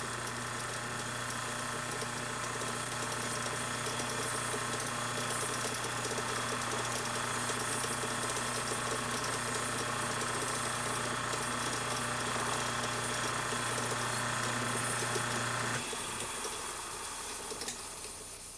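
Watchmaker's lathe motor running with a steady hum while a hand tool scrapes leftover solder off a spinning brass clock barrel, with a hiss over the hum. About sixteen seconds in the hum cuts off and a softer whir fades away as the lathe spins down.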